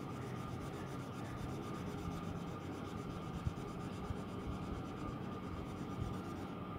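Coloured pencil rubbing back and forth on a paper worksheet, steady shading as a drawing is coloured in.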